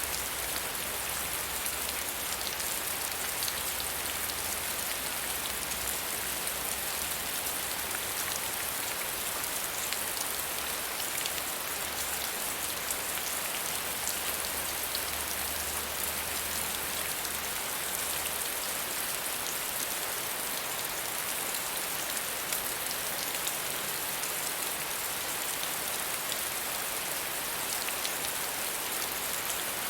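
Steady soft rain falling, an even hiss of many fine drops pattering on a surface, with a faint low rumble underneath that fades out about two-thirds of the way through.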